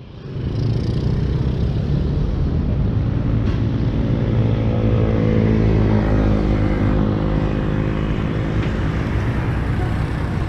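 Road traffic going by, with a motor vehicle's engine passing close in the middle.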